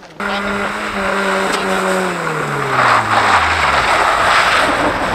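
Rally car engine note dropping steadily over about three and a half seconds as the car slows. From about three seconds in it gives way to a louder rushing noise of the car running on the snowy road.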